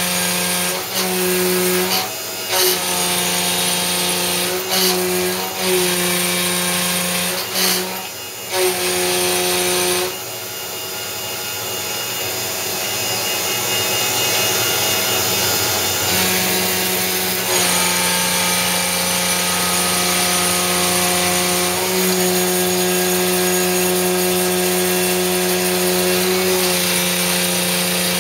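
Belt-drive CNC milling machine face milling an aluminum plate with a 5/8-inch two-flute end mill at about 6,000 rpm and 90 inches per minute: a steady high-speed cutting whine with short dips where each pass ends. About ten seconds in the cut stops for several seconds, then resumes and runs on steadily.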